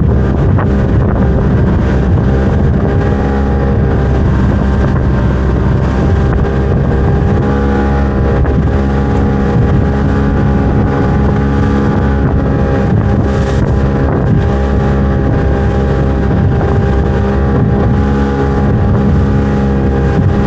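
Small open boat's outboard motor running steadily at cruising speed, its pitch holding level, with wind buffeting the microphone.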